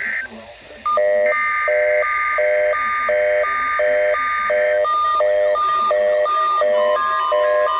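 Emergency Alert System test tones: a harsh electronic data screech layered with a repeating beep pattern of about one and a half beeps a second. About seven seconds in, a steady weather-radio warning alarm tone starts.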